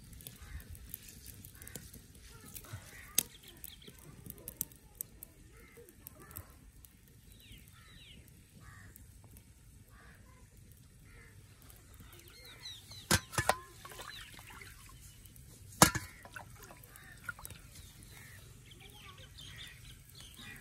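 Birds calling again and again, over the faint swish of hands washing rice in a steel platter of water. A few sharp knocks stand out, the loudest about 16 seconds in.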